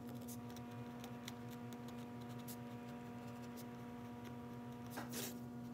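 Faint pencil writing on a pine board: scattered light ticks and scratches as letters are drawn, over a steady faint hum.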